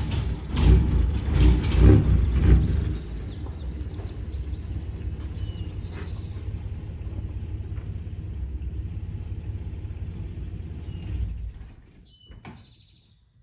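Ford 4.9L (300 cubic inch) inline-six engine of a 1950 Grumman Olson van running, with a few loud surges in the first three seconds, then idling steadily before it stops near the end.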